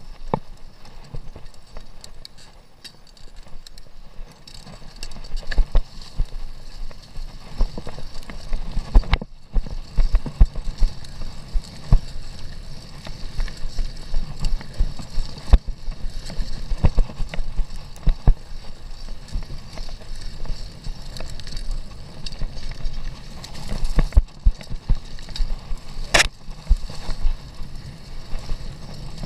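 Commencal mountain bike ridden over a bumpy dirt single track: low tyre rumble with frequent knocks and rattles as the bike hits bumps. It is calmer for the first few seconds, then the knocks come thicker, with one especially sharp click near the end.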